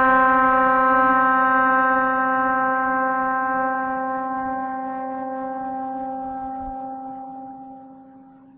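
A 2015 Jeep Wrangler's single large trumpet air horn, fed by a very small air tank, sounds one long blast at a steady pitch. The blast fades gradually to faint over about eight seconds as the Jeep drives away.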